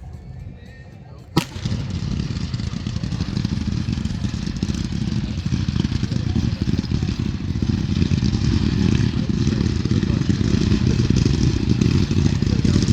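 Fireworks: one sharp bang about a second and a half in, then a loud, dense crackling over a low rumble that runs on and stops suddenly near the end.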